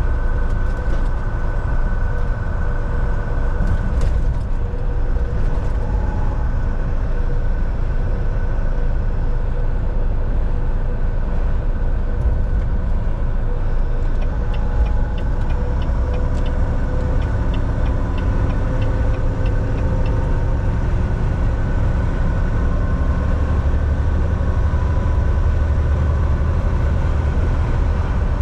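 Volvo semi truck driving, with a steady engine and road rumble throughout. About halfway through, a run of light, evenly spaced ticks lasts for several seconds.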